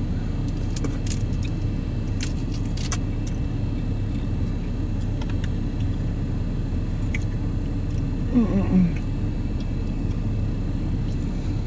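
Steady low background rumble, with a few small clicks of crab-boil eating about one to three seconds in and a short hum from the eater past the middle.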